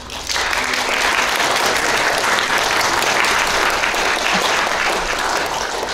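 Audience applauding, starting a fraction of a second in and dying away near the end.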